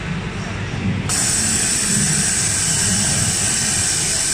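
JACK elastic-attaching overlock machine starting about a second in and sewing at high speed with a steady high-pitched whine.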